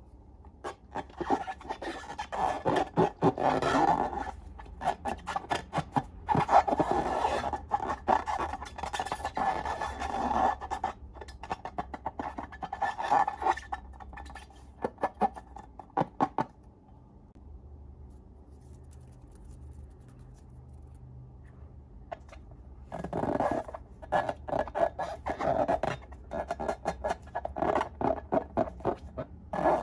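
Slime being worked by hand: sticky, crackly squelching and scraping in spurts, full of small clicks and pops, with a quieter pause a little past the middle.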